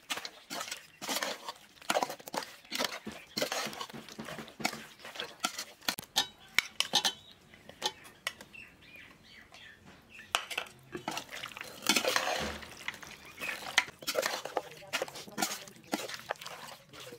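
Perforated metal spoon scraping and clinking against a metal pot while stirring chunks of spiced raw pork and radish. The stirring pauses and goes quieter about halfway through, then picks up again.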